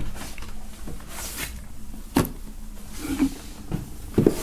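Handling noise as a camera and a cardboard box are moved about by hand: low rubbing and rustling, a sharp click about two seconds in, and a knock near the end as the box is set down on a wooden table.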